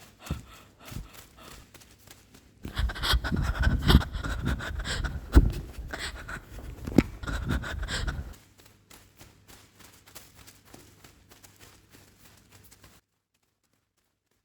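Foley of hurried footsteps with panting breath, loudest from about three to eight seconds in, then fainter footfalls that cut off to silence shortly before the end.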